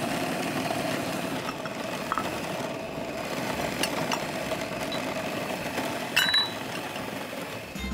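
Electric kitchen machine's motor running steadily while it works the minced-meat mixture, with a steady hum. A brief clink about six seconds in.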